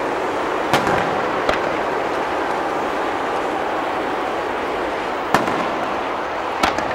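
Aerial firework shells bursting with sharp bangs over a steady background noise: two bangs about a second in and two more near the end.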